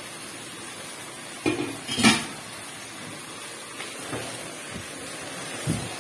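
A glass pan lid clatters down twice, about one and a half to two seconds in. Then a silicone spatula stirs and scrapes mutton chops in thick masala gravy in a non-stick pan, with a few soft knocks against the pan, over a steady low hiss of the simmering gravy.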